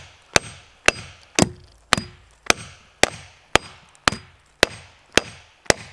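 Steel axe head hammering the spine of a Wolfgangs W1 full-tang knife, driving the blade into a dead tree trunk: about eleven sharp metal-on-metal strikes, evenly spaced at roughly two a second, each with a brief ring.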